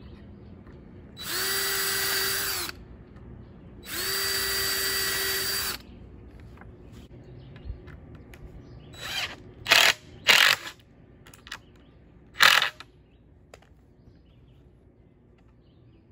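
Cordless drill boring two holes into weathered wood boards, its motor running at a steady pitch for about one and a half and two seconds. Several seconds later a cordless impact driver drives screws in a few short, louder bursts.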